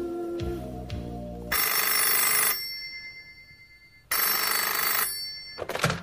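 Music stops, then a rotary-dial desk telephone rings twice, each ring about a second long with a pause of about one and a half seconds between them. Near the end the handset is picked up with a short clatter.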